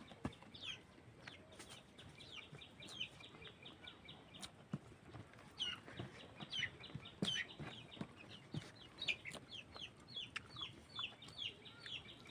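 Chickens calling throughout, many short high falling peeps and clucks, with a few sharp clicks in between.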